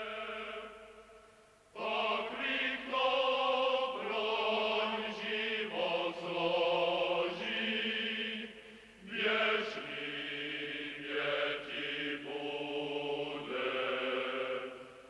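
A choir singing a slow chant in long held notes, coming in about two seconds in and fading out near the end.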